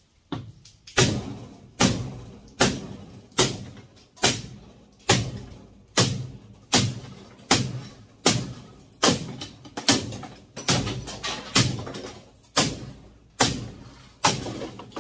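A hammer striking metal in steady, evenly spaced blows, a little faster than one a second, each ringing briefly. This is the sound of a scrap electric motor being knocked apart for its copper.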